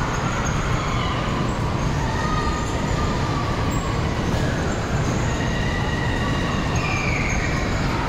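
Spinning fairground ride running at speed: its cars rumble steadily around the platform, with faint high squeals gliding up and down over the rumble.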